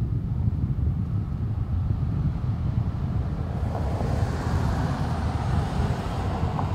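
Steady low diesel rumble of an idling concrete mixer truck. From about three and a half seconds in, the hiss of a passing car's tyres swells and then eases off near the end.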